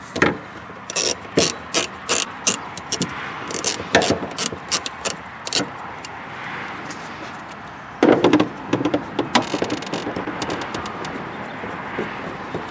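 Hand tools clicking and knocking while the screw is undone on the BMW battery safety terminal cable: a string of irregular sharp clicks, then a louder clatter about eight seconds in, followed by scattered clicks.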